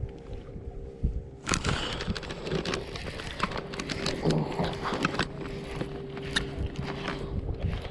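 Shirt sleeve rubbing and knocking against the camera: a dense crackling rustle with sharp clicks that starts about a second and a half in and runs on.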